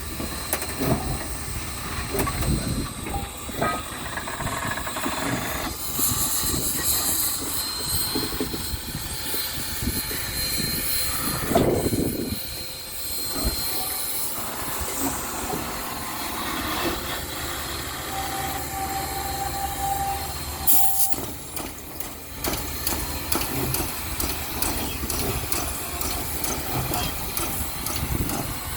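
Southern Railway 4501, a Mikado-type steam locomotive, moving slowly on the rails with wheels clicking and steam hissing. There is a louder swell partway through and a short steady whine about two-thirds of the way in.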